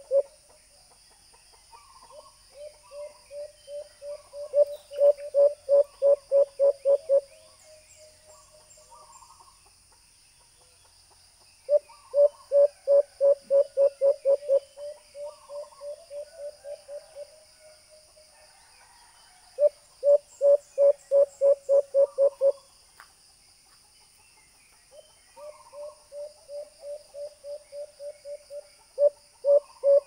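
Recorded call of the white-eared brown dove played through a small Bluetooth speaker as a hunting lure: runs of low hooting notes, several a second, that come in four bouts with pauses between. Some bouts start soft and build to loud, others start loud and fade.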